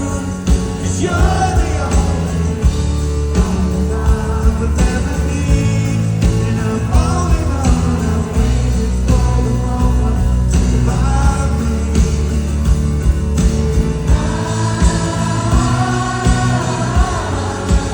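Live rock band playing with singing over a steady drum beat.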